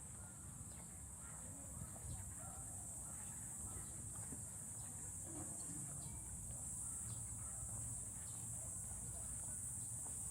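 Steady, high-pitched drone of a cicada chorus, with faint distant voices and light clicks underneath.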